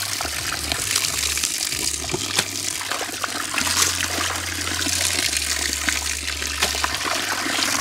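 Water splashing and sloshing as hands stir and rub through a basin of small fish to wash them, with many small splashes in quick succession.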